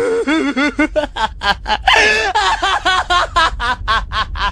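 A young man's loud, rapid maniacal laugh, a fast run of repeated ha's with a louder, higher stretch about halfway through: an anime villain's triumphant laughter.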